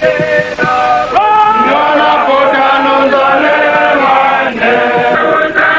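A group of male voices singing a chant together in chorus, with long held notes that step from one pitch to the next.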